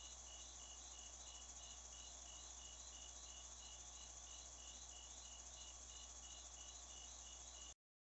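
Crickets chirping faintly: a regular high chirp about two and a half times a second over a steady high-pitched insect trill, with a low steady hum underneath.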